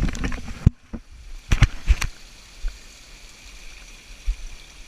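Creek water and waterfalls rushing steadily, with a few sharp knocks about a second and a half in and low rumbling bumps on the microphone.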